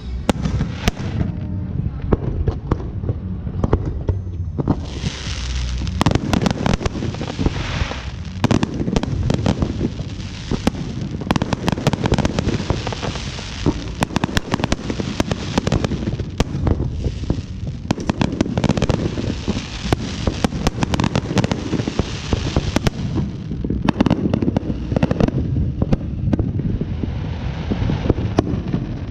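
Fireworks going off overhead in a dense, continuous barrage: rapid crackling and popping shell bursts over a steady rumble of booms, thickening into heavier salvos several times.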